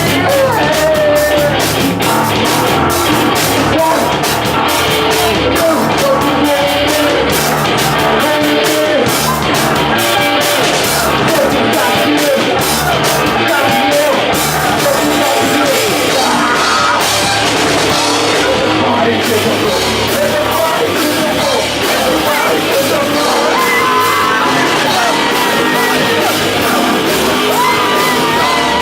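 Live rock band playing loudly, with sung and yelled vocals over a drum kit and instruments.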